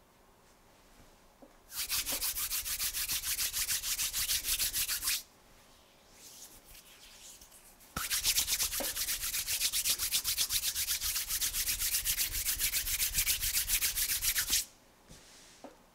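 Hands rubbing briskly together palm against palm: rapid back-and-forth strokes in two long bouts, with a short, softer bit of rubbing between them.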